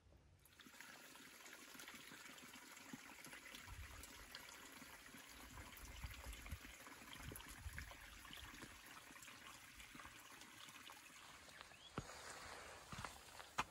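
Faint trickling and dripping of water, a soft steady hiss sprinkled with tiny ticks. Near the end come a couple of footsteps on the wet track.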